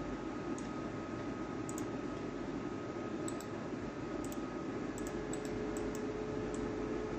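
Scattered faint computer mouse clicks, about a dozen and many in quick pairs, over a steady background hiss and hum.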